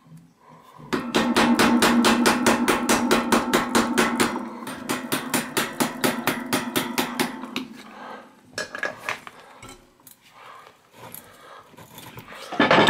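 Rapid, evenly spaced metallic clicking from a Sturmey-Archer AW three-speed hub as its threaded ball cup is unscrewed counterclockwise from the hub shell. The clicking is loudest for the first few seconds, fades, and gives way to scattered small handling sounds in the second half.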